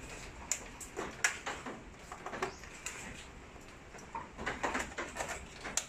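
Scattered light clicks and knocks from hands handling an electric scooter's handlebars and grips, with a cluster of them around four and a half to five seconds in.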